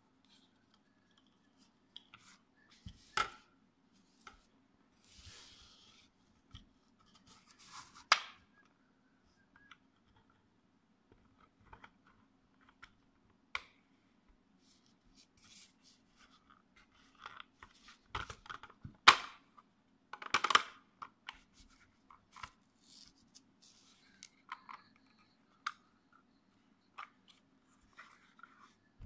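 3D-printed plastic parts being handled and fitted together: scattered clicks, knocks and short scrapes of plastic on plastic, with the sharpest knocks about three, eight, nineteen and twenty seconds in, over a faint low steady hum.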